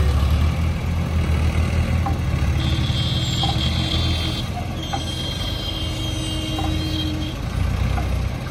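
Heavy diesel engine of an Escorts Hydra mobile crane running steadily. Two long high-pitched electronic tones sound in the middle, one after the other.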